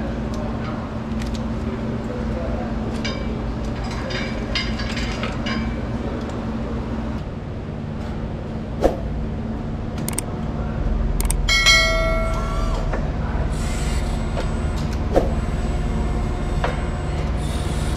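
A forklift engine runs with a steady hum. The hum shifts about seven seconds in and grows deeper and louder a few seconds later. Scattered metal clinks, a few sharp knocks and a brief whine come in around the middle.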